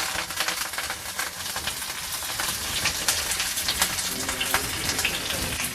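Tempering of mustard seeds, cumin and other seasonings sizzling in hot oil in a pan, with many small crackles and pops throughout.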